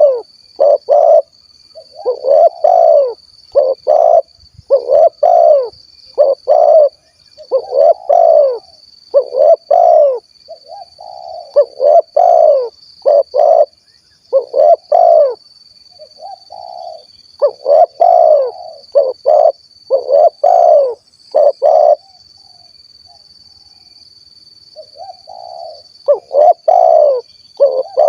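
Spotted dove (tekukur) singing its 'kuk 1' song: groups of short, low, hollow coos repeated over and over, pausing for a few seconds near the end before starting again. A steady thin high-pitched whine runs underneath.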